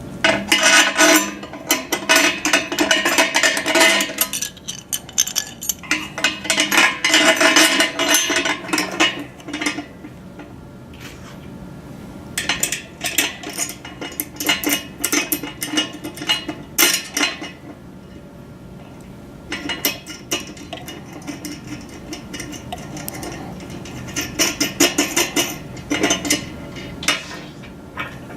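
Steel U-bolt, pole bracket, washer and nut clinking and rattling as they are fitted and fastened onto the dish's bracket. The clinking comes in several bunched bouts with short pauses between.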